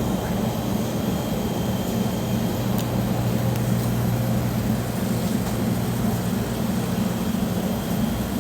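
Steady low hum inside a moving car: engine and road noise from the cabin, with no change in pitch.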